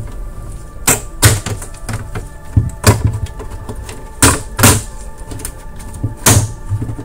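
Sharp plastic clicks and knocks from an Xbox console's casing, about six in all and irregularly spaced, as its back cover is worked loose.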